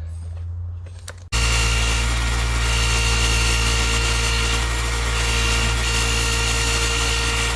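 Polishing motor with a sisal buffing wheel loaded with black compound, starting abruptly about a second in and running loudly and steadily with a constant whine, buffing a copper lampshade. Before it starts there is only a low hum.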